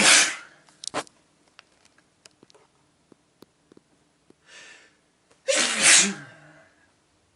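A person sneezing twice: one sneeze right at the start and another about six seconds in, the second after an audible in-breath.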